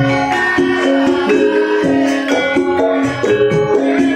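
Live Javanese gamelan-style dance music: a stepping melody of sustained pitched notes over a steady jingling, shaking rhythm.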